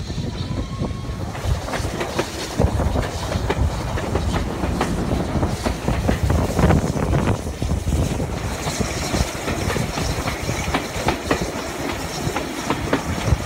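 Passenger carriages of a moving train rolling along, the wheels clicking over the rail joints above a steady low rumble, heard from an open carriage window.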